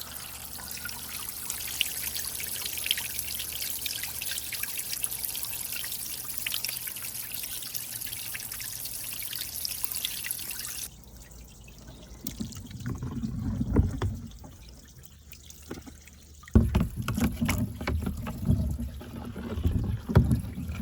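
Water trickling and splashing with many small ticks, which cuts off suddenly about eleven seconds in. Low rumbling handling noises with a few knocks follow.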